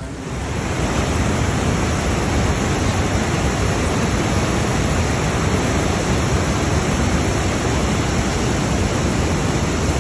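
Whitewater rapids rushing over rock ledges: a loud, steady, unbroken rush of water that cuts in suddenly at the start.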